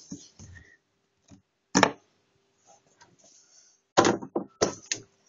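Handling knocks as small plastic toy figurines are picked up and set down close to the microphone: one sharp knock about two seconds in and a quick run of several knocks near the end.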